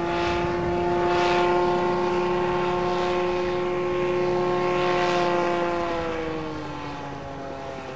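A gyroplane's 120 hp Yamaha snowmobile engine and pusher propeller running steadily in flight overhead, with a whoosh that swells and fades about once a second. In the last couple of seconds the engine note slides down in pitch and grows quieter.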